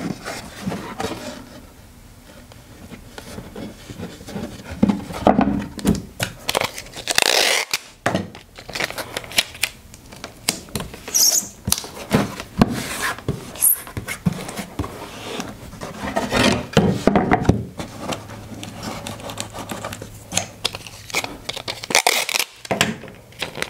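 Clear packing tape being pulled off the roll and rubbed down onto a wooden board: irregular scraping and crackling with several brief, louder rips of tape coming off the roll.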